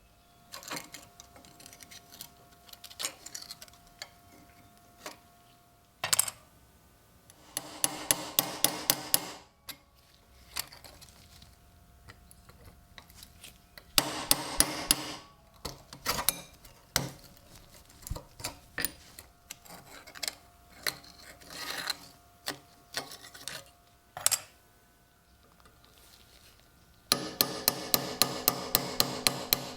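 Small hammer striking metal in quick runs of sharp taps, about four a second, with scattered single taps between the runs and a faint metallic ring.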